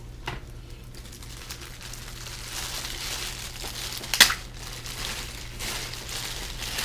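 Packaging crinkling and rustling as a carrying bag is unwrapped, with one sharp, loud crackle about four seconds in.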